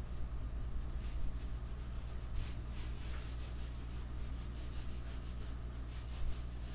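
Pencil scratching on paper in many short, irregular sketching strokes, over a faint steady low hum.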